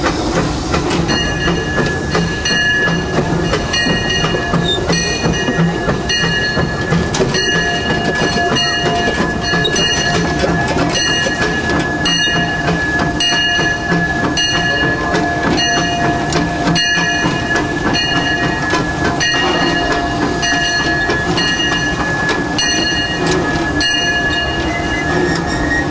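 Steam locomotive heard from inside its cab, running slowly as it pulls into a station. A ringing tone starts about a second in and repeats about once a second, and a second, lower tone joins about seven seconds in.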